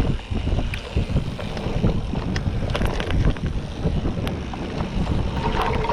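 Wind buffeting the microphone over the rumble and rattle of a mountain bike rolling along a dirt trail, with scattered clicks and knocks. A brief steady tone comes in near the end.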